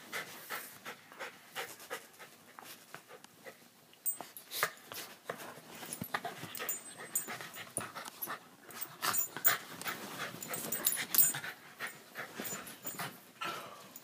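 Two beagles play-wrestling, breathing hard, with many short, irregular scuffling noises.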